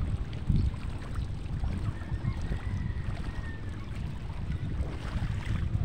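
Wind buffeting the microphone in a fluctuating low rumble, over the sound of water moving.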